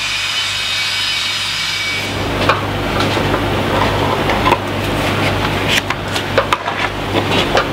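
Screws being driven by hand to fix a small plastic cable-gland box to the steel cabin ceiling: a steady whirring hiss for about the first two seconds, then scraping and short clicks of the screwdriver work.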